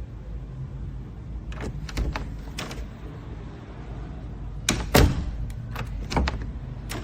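Door lock and lever hardware clicking and knocking: a few sharp clicks about a second and a half in, then another group around five seconds in, the loudest near five seconds, over a steady low hum.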